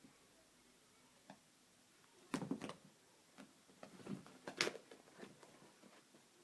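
A cat's paws tapping and scrabbling in two short flurries of clicks and knocks, about two and a half and four and a half seconds in, with a few single ticks between, as it chases its tail.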